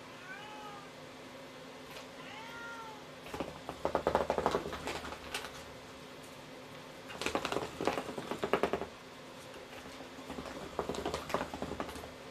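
A cat gives two short meows, rising and falling in pitch, in the first couple of seconds. Then come three loud stretches of rapid clattering from the wooden circuit toy as the cat paws down into its holes after the ball inside.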